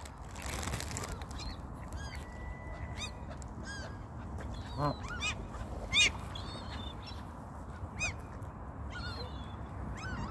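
Canada geese and gulls calling: a scattered run of short, sharp, high calls, with a couple of louder calls about five and six seconds in.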